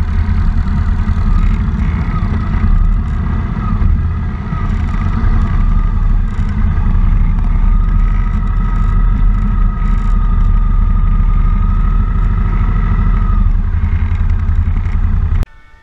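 Motorcycle engine running steadily at low parking-lot speed, with a held whine above the engine note. It cuts off suddenly near the end.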